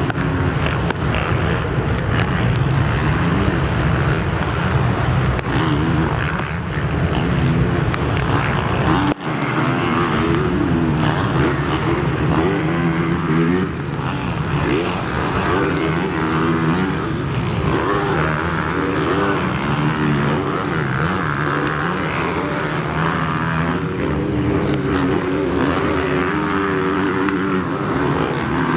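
Several motocross bikes racing around a dirt track, their engines revving up and down over and over with throttle and gear changes. There is a brief break in the sound about nine seconds in.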